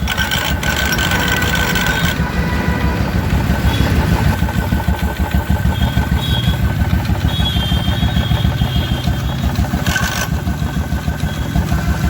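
Royal Enfield Electra 350 single-cylinder engine idling with its clutch cover off, running with an even pulse and a rattle ("khad khad khad") from the sprag clutch gear repeatedly touching the small primary chain sprocket.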